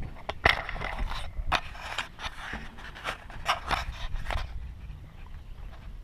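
Boots stepping along the rusted steel walkway of the Duga over-the-horizon radar antenna: a quick, irregular run of clanks and scrapes that stops about four and a half seconds in, over a low rumble.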